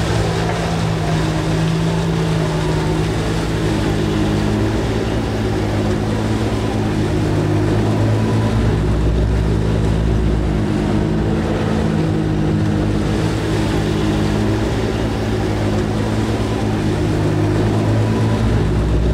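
Vaporetto water bus's diesel engine running steadily at cruising speed, over the rush of water along the hull. A deeper rumble swells about halfway through and again near the end.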